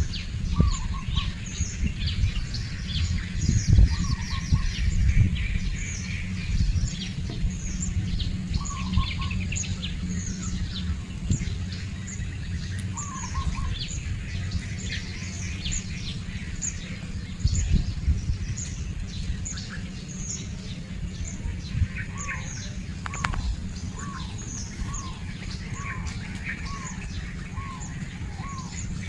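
Birds chirping and calling, with quick high chirps throughout and a mid-pitched call repeated about twice a second near the end, over a steady low rumble.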